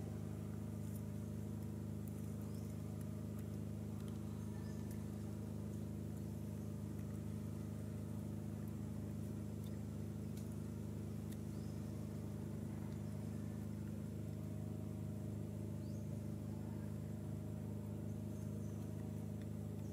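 A steady low motor hum made of several fixed tones, unchanging in pitch and level, with a few faint high ticks scattered over it.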